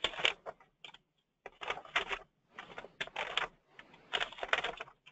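Computer keyboard typing in irregular runs of keystrokes with short pauses between them.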